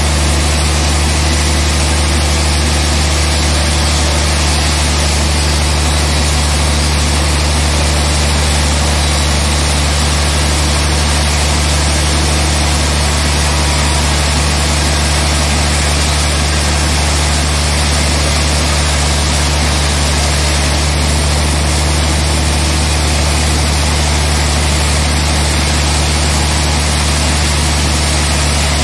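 Large band sawmill running loud and steady, a constant low hum under a broad hiss, as its blade saws a slab off a trembesi (rain tree) log.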